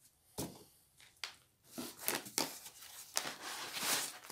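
Hands unpacking a 3D printer from its cardboard box and foam inserts: two sharp knocks, then rustling and scraping of parts against foam and cardboard that grows louder near the end.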